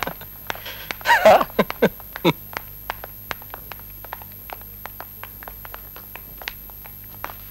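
A voice cries out briefly about a second in, followed by a quick, irregular run of sharp footsteps on a hard tiled floor that grows fainter.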